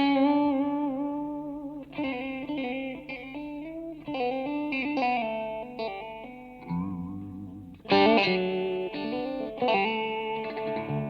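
Background music: a guitar with effects playing melodic phrases of single notes, with a louder phrase starting about eight seconds in.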